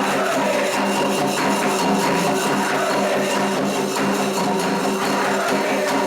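Candomblé ritual music, percussion keeping a steady, even rhythm throughout.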